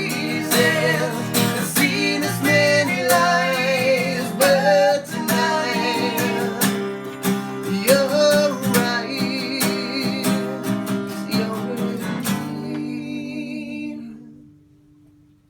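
Live acoustic guitar strumming under a singer's vocal. The song ends on a last strummed chord about twelve seconds in, which rings and fades away.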